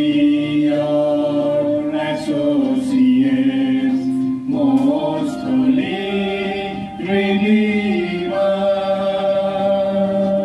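Small mixed group of men and women singing a slow devotional hymn together in long held notes, accompanied by a Roland electronic keyboard.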